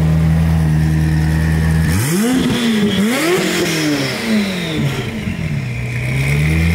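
SSC Tuatara Striker's twin-turbo V8 idling, then revved in about three quick blips that rise and fall in pitch, settling back to a steady idle near the end.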